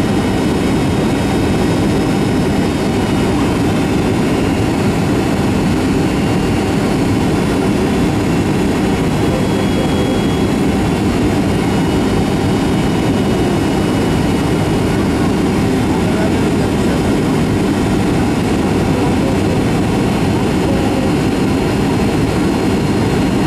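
Steady cabin noise inside a Boeing 757 during the descent on approach to landing: a low, even drone from the jet engines and the air rushing past the fuselage, with a faint steady high whine above it.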